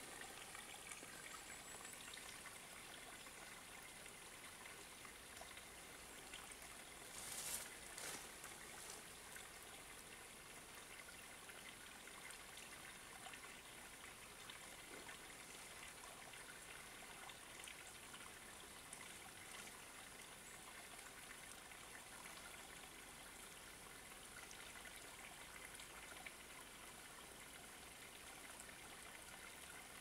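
Near silence: a faint, steady hiss, with one short louder noise about seven and a half seconds in.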